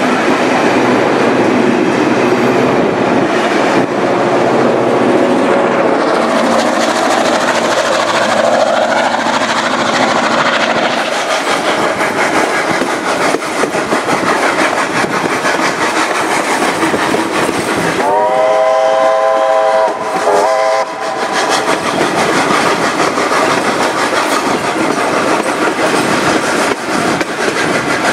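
Steam locomotive 3642 running, a steady rush of steam and rolling train noise, with its steam whistle sounding one long blast about two-thirds of the way through and then a short toot.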